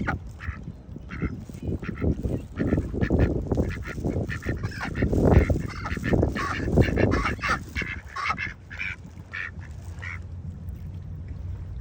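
Ducks calling over and over in short, quick honking quacks. Wind rumbles on the microphone through the middle of the stretch.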